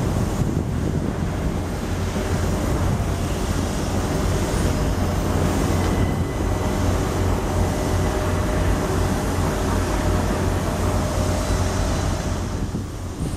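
Southern Class 377 Electrostar electric multiple unit moving through the station: a steady low hum and rumble with a faint steady whine.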